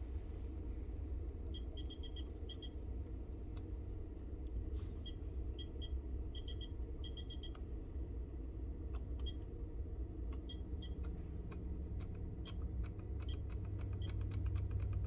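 Bench test of a 1994 Mercedes S500 (W140) instrument cluster driven by a signal generator: a steady low electrical hum with light clicks and ticks. The clicks come in small groups at first and more and more often over the last few seconds.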